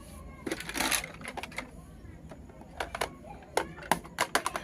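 Small plastic miniature kitchen-toy pieces being handled, with a brief rustle about half a second in and then a run of sharp, irregular clicks and taps, thickest near the end.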